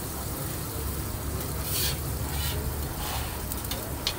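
A burger bun toasting face-down in melted fat on a flat-top griddle, sizzling steadily, with a few brief louder hisses over a low steady hum.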